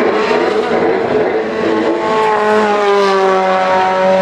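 Hill-climb race car's engine at full throttle, with a shift in pitch about a second and a half in, then the pitch climbing steadily as it accelerates.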